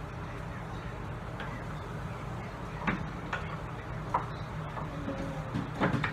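Kitchen utensils and dishes knocking and clicking lightly a few times during cooking, loudest near the end, over a steady low hum.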